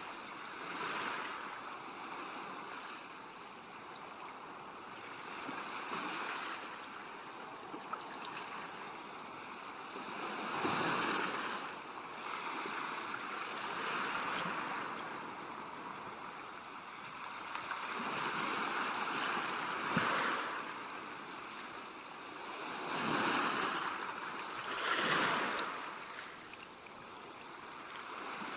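Sea waves washing onto a calm shore, the surf swelling and easing every few seconds.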